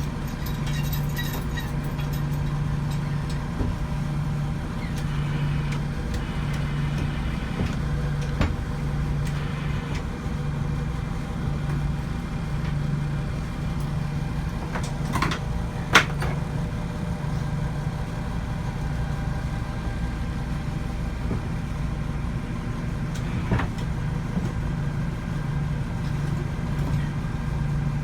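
Engine idling steadily, with a slow even pulse in its hum and a few sharp clicks or knocks about halfway through.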